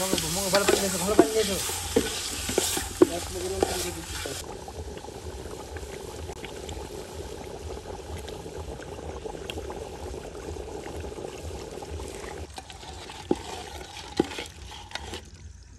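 A utensil stirring and scraping bhuna khichuri in a large metal pot over a wood fire, the rice frying and sizzling with sharp scrapes against the pot. After about four seconds the stirring stops and a quieter steady sizzle goes on, with a couple of clicks near the end.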